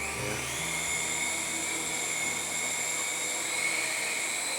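Small toy aircraft's electric motors and propellers whining steadily at a high pitch, rising a little as it spins up in the first second.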